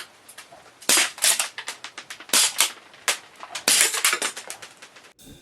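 Airsoft pistol shots and hits: a handful of sharp cracks in irregular groups, each with a brief rattle after it, with a quick run of them a little before the end.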